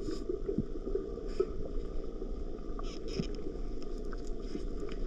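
Steady low rush of flowing river water from a nearby waterfall, with a few faint knocks.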